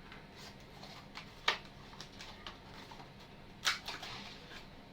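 Two sharp plastic-and-metal clicks, about two seconds apart, with faint handling noise between, as a stock CPU cooler fan is unclipped from a motherboard.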